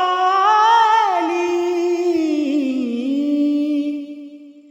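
A man singing a long, ornamented held vowel at the end of a line of a Marathi devotional gavlan (abhang-style song). His pitch wavers, slides down about two seconds in, and settles on a steady held note that fades out near the end.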